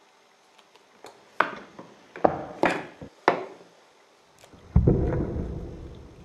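Four or five sharp taps on a hard surface in quick succession, then a heavier thud with a low hum that fades out over a second or so.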